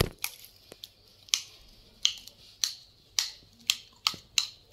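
Metal spoon clinking and scraping against a stainless steel bowl while stirring dog kibble and boiled egg, about a dozen sharp clinks at an uneven pace.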